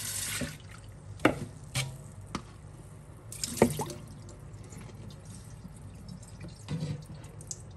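Water pouring from a bowl into a stainless steel sink, stopping about half a second in, followed by scattered drips and sharp knocks and another short splash a few seconds in.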